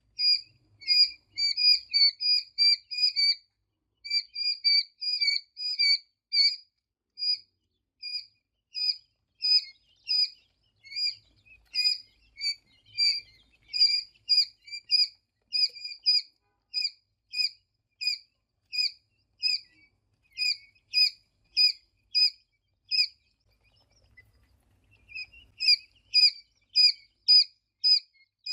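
Tiny birds cheeping: short high-pitched chirps repeating about two to three a second, with a brief pause near the end.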